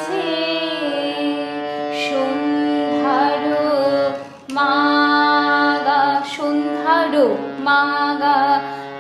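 Harmonium playing a Bengali song melody in B-flat while a woman sings along, her voice sliding and ornamenting the held notes. There is a short break about four seconds in and a falling slide in the voice near seven seconds.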